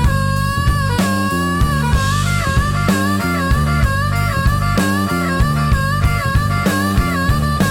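Instrumental blues: a harmonica holding long, slightly bending notes over a stepping guitar and bass line with a steady drum beat.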